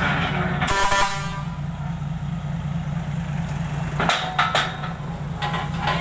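Combine harvester's diesel engine running steadily with a loud exhaust as the machine drives up onto a trailer. A short high tone sounds about a second in, and a couple of sharp knocks come about four seconds in.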